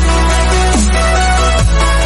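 Background electronic dance music with heavy bass and falling pitch sweeps about every second.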